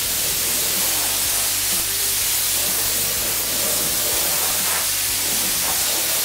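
HVLP spray gun spraying acetone-thinned paint: a loud, steady hiss of air and atomised paint that holds even throughout.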